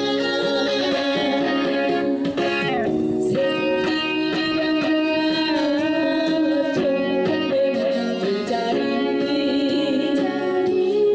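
Trot song backing music, with an electric guitar playing the melody.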